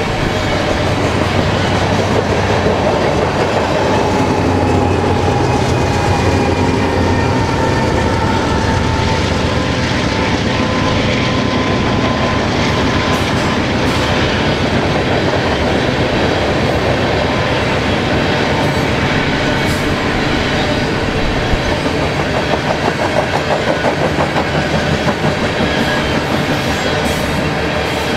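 BNSF grain train of covered hopper cars rolling past, steel wheels rattling and clicking over the rail joints. The drone of the mid-train diesel locomotives is strongest in the first half and fades as they move away. About three-quarters of the way through, a quick rhythmic clatter sets in for a few seconds.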